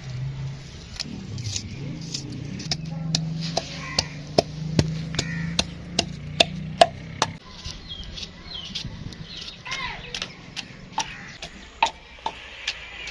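Knife chopping onions on a cutting board, with sharp strokes about two to three a second that grow softer in the second half.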